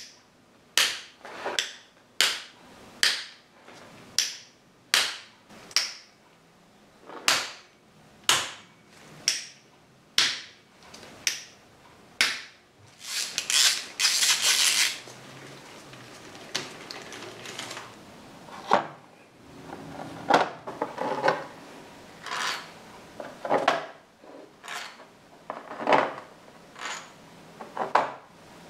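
Cam cover screws on a Harley-Davidson Sportster being undone with a hex-bit driver: a run of sharp clicks about one a second as the screws crack loose in turn. A short rushing noise about halfway is followed by softer knocks and clinks of metal as the loosened screws are handled and set down.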